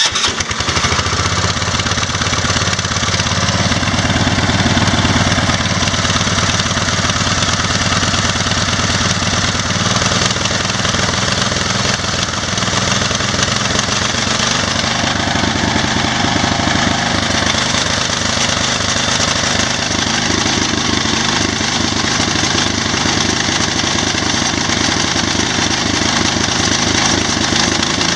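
Massey Ferguson 1650 garden tractor's 16 hp engine running steadily right after starting, with rapid even firing pulses; its note shifts about ten seconds in. It carries the carburetor and fuel pump from a 14 hp Massey, so it is not dialed in and runs alright but not perfect.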